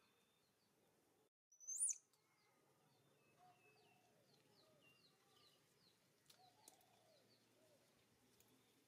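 Faint chirping and short whistles of small birds. About two seconds in comes one brief, sharp, high rising squeak, the loudest sound.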